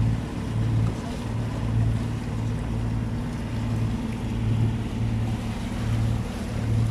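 A sailing yacht's inboard diesel engine running steadily under way, a low drone that swells and fades slightly, over a hiss of wind and water.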